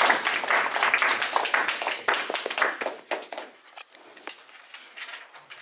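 A small group of people applauding, the clapping thinning out and dying away after about three and a half seconds into a few scattered claps.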